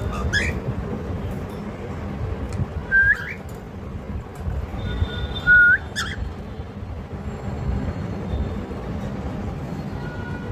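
Cockatiel whistling: three short whistled notes, each ending in a rising upward sweep, about three seconds apart in the first half, over a steady low background hum.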